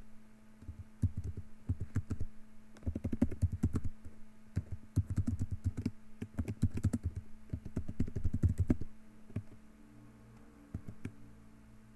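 Typing on a computer keyboard in quick bursts of key clicks, with short pauses between words; the typing slows and thins out near the end.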